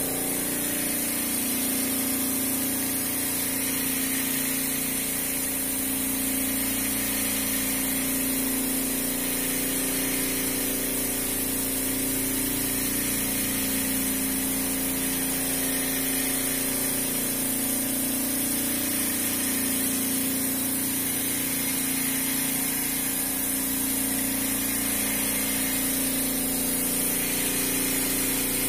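Refrigeration system running: a steady hum with a constant high hiss over it.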